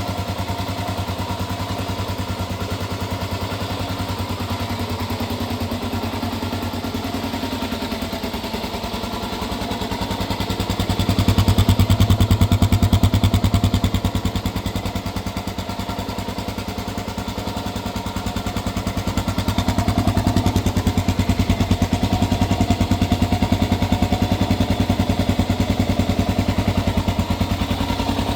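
1998 Honda XR250 Baja's air-cooled single-cylinder four-stroke engine running through a Delta aftermarket exhaust with its restrictor insert fitted. It idles steadily, is held at higher revs for a few seconds partway through, settles back, then is held up again near the end.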